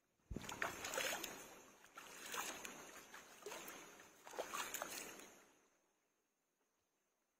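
Water splashing and sloshing as a person bathes sitting in a shallow stream. It starts suddenly, comes in three swells of splashing, and fades out about six seconds in.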